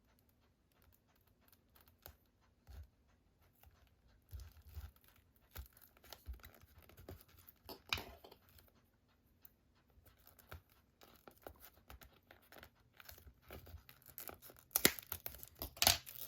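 A boxed Blu-ray set being opened by hand, its plastic wrapping torn and crinkled. Scattered scratches and rustles of handling, with a sharper crackle about eight seconds in and louder tearing crackles near the end.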